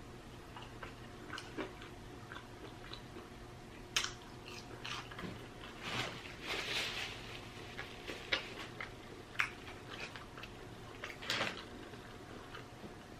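Close-miked mouth sounds of a person eating: chewing with scattered wet lip smacks and clicks, a few sharper smacks standing out, and a denser run of chewing a little past the middle.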